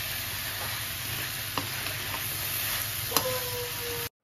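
Potatoes and bell peppers sizzling in a metal kadai while a perforated metal spatula stirs them, scraping along the pan with a couple of clinks. The sharper clink about three seconds in leaves the pan ringing briefly, and the sound cuts off just before the end.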